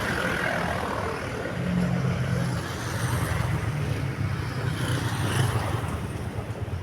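A bus passing on the road, its engine drone swelling over a few seconds and then easing off; no telolet horn is sounded.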